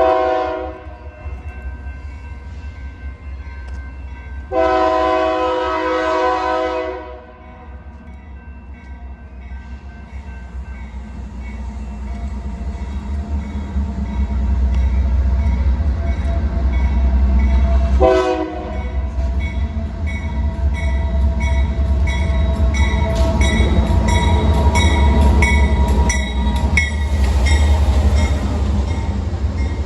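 Locomotive horn: a short blast, a long blast of about two and a half seconds, then a short blast that drops slightly in pitch as the train comes by. A train then passes close with a loud rumble and steady clicking of wheels over rail joints.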